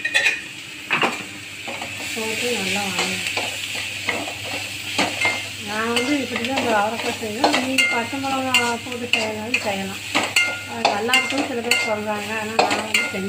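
Steel ladle stirring and scraping a bean stir-fry in an aluminium kadai, with steady sizzling and frequent clinks of the ladle against the pan.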